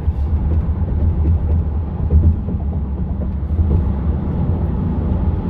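Road noise heard from inside a moving car: a steady low rumble of tyres and engine.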